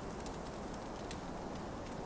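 Steady blizzard wind blowing, with a campfire crackling over it: a few sharp pops, the clearest about a second in.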